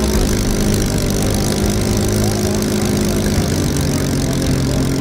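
Supermarine Spitfire Mk IX's Rolls-Royce Merlin V12 engine running steadily at low power on the ground, propeller turning.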